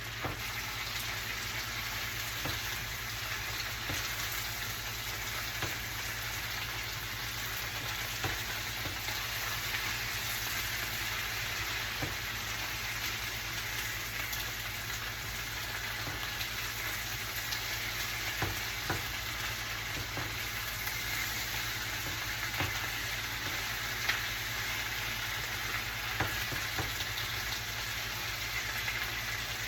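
Home fries (diced red-skin potatoes with onion and pepper) sizzling steadily as they fry, with a little water just added, and scattered short pops and crackles.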